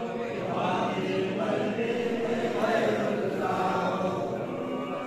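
A crowd of men chanting together, many voices at once, rising and falling in a steady rhythm.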